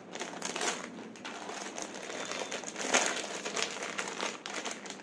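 Clear plastic wrapping crinkling as it is handled, in irregular crackles that peak about three seconds in.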